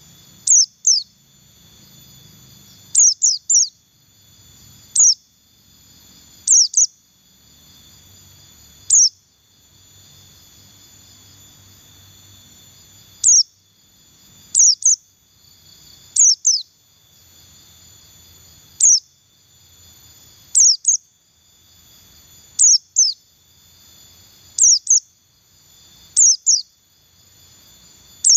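A white-eye (pleci buxtoni) giving short, sharp, falling chirps ('ngeriwik'), singly or in quick twos and threes, every two to four seconds. A steady high-pitched drone runs behind them.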